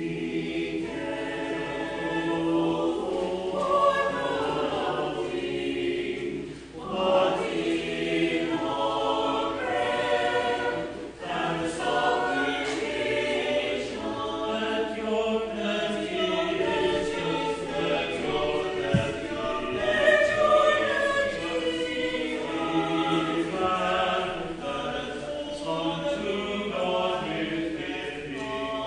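Church choir singing, sustained phrases with brief breaks between them.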